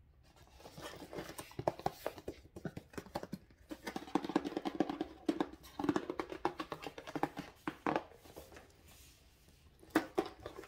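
Hands handling a boxed massage pillow's cardboard packaging, making dense, irregular crinkling, scratching and clicking. A sharper flurry comes near the end as the box is turned over.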